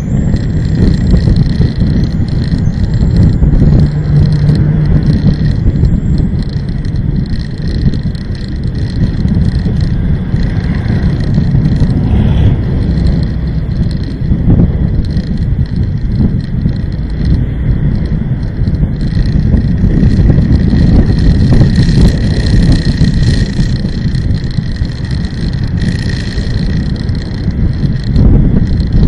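Steady low rumble of engine and road noise from a vehicle driving along a city road.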